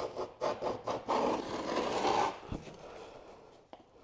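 Score-and-snap scoring tool being drawn along a 12 mm Hardiebacker cement board: a few short scraping strokes, then one longer, louder stroke lasting a little over a second, with a soft knock after it. These are repeated scoring passes to cut a groove deep enough to snap the board.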